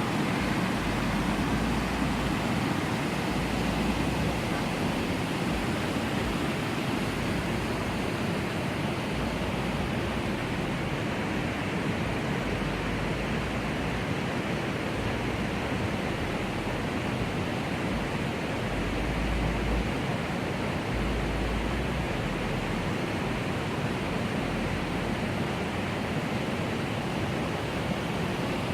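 Steady rushing of a mountain river, with low rumbles coming and going underneath.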